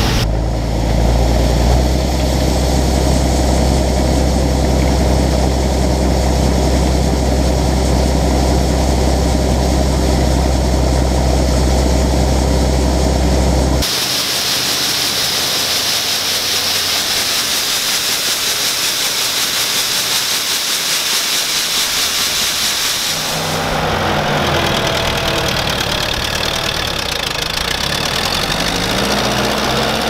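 A Gleaner M2 combine runs steadily with a low hum while it unloads through its auger. The sound then changes to a steady rushing hiss of soybeans pouring from the auger spout into a gravity wagon. Near the end, an Allis-Chalmers D17 tractor engine pulls the wagon, its pitch rising.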